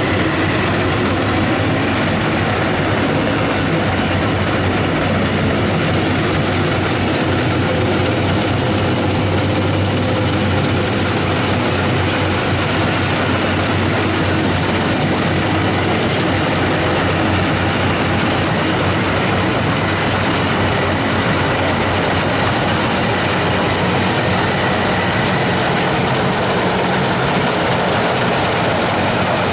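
Rice combine harvester running steadily, its engine humming low under a constant dense clatter of the machinery.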